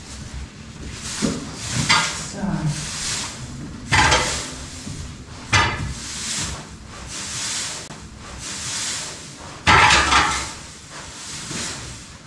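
Pitchfork working through straw bedding: rustling swishes of straw with a few sharper, louder strokes, about four seconds in, again a moment later, and near ten seconds.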